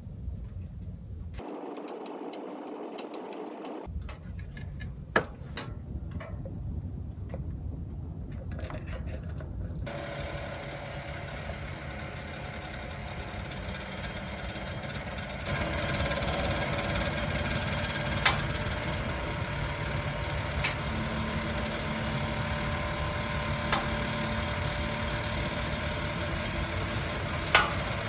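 Wood fire burning in a small stainless steel camping stove: a steady low rumble with a few sharp crackles. It gets louder about halfway through.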